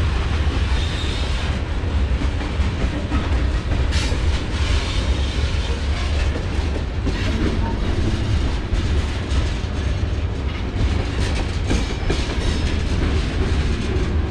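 Long mixed-manifest freight train rolling past: a steady heavy rumble with wheels clacking over the rail joints.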